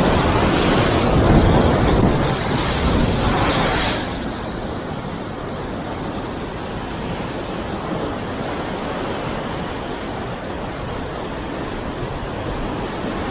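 Sea surf breaking and foaming against rocks, with wind buffeting the microphone. It is loudest for the first four seconds, then settles into a steadier, quieter wash of surf.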